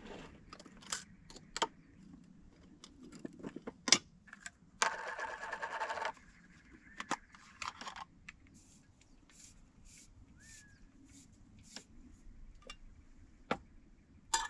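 Camp coffee gear being handled: scattered clicks, taps and clinks of metal pots and containers, with a sharp knock about four seconds in and then a noisy rush lasting about a second. A bird chirps once past the middle.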